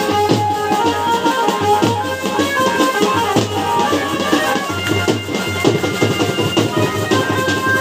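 Live folk drumming from a stick-beaten side drum and a barrel drum, in a fast dense rhythm. Over it runs a melody of long held notes that shift in pitch.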